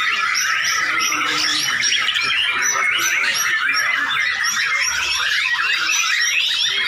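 Many white-rumped shamas singing at once in competition: a dense, continuous chorus of overlapping, rapid whistled phrases.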